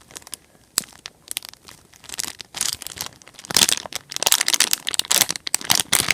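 Plastic crinkling and crackling in quick irregular bursts as a squeeze toy is handled, sparse at first and thicker from about halfway through.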